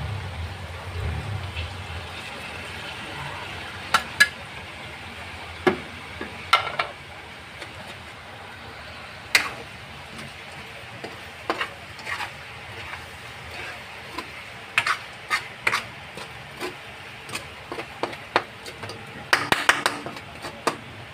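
Chicken pieces sizzling in a wok with soy sauce, a steady hiss, while a metal spatula stirs them. The spatula clinks and scrapes against the wok in irregular strokes, with a quick flurry of strokes near the end.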